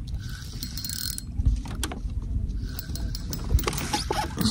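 Fixed-spool fishing reel being cranked in two stretches, retrieving line on a feeder rod, with scattered clicks from handling.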